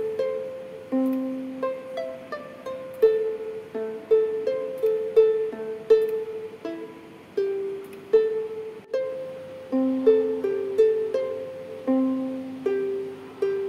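Background music: a light plucked-string melody, single notes struck about two to three a second, each fading quickly, with a very brief break about nine seconds in.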